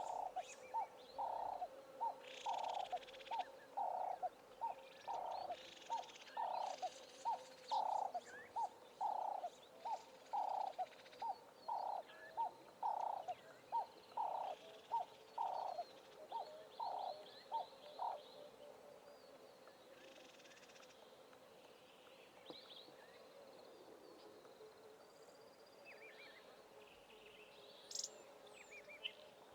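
Bush birdsong: a bird repeats low, cooing notes about twice a second for some eighteen seconds, with higher chirps and short trills from other birds over it. The cooing then stops, leaving only scattered high chirps.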